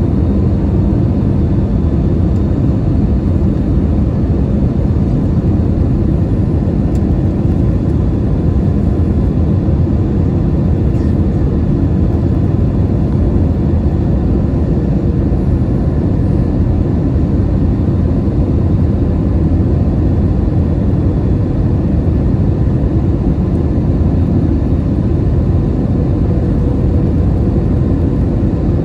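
Steady cabin roar of an Airbus A321-211 airliner in flight, heard from inside the cabin: a constant low rush of airflow and engine noise from its CFM56 turbofans, with a faint steady hum running underneath.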